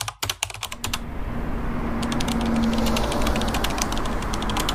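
Rapid typewriter-style key clicks in quick runs, a typing sound effect for on-screen text appearing letter by letter, over a steady low rumble.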